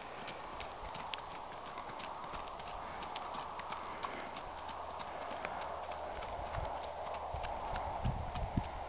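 Faint, evenly spaced hoofbeats of a ridden Icelandic horse moving briskly along a dirt road.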